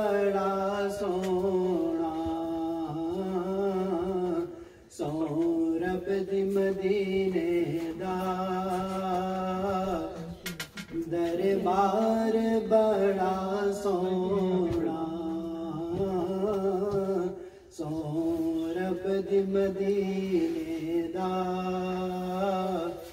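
A man singing an Urdu naat, a devotional recitation, into a handheld karaoke microphone. He sings solo in long, drawn-out melodic phrases of several seconds each, with short breaths between them.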